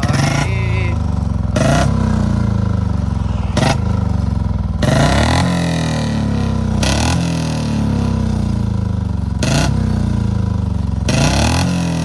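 Royal Enfield Bullet 350 BS6 single-cylinder engine idling and blipped on the throttle a few times, with about seven sharp cracks every couple of seconds as a pop ('pataka') switch wired in to make the exhaust bang is tried out.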